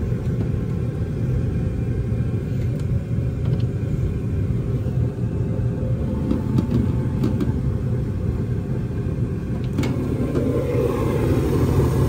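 Ruud gas furnace running just after ignition: a steady low rumble from the lit burners and the inducer fan. Several sharp clicks come as the front panel is handled. Near the end the rumble grows fuller as the burner compartment is opened.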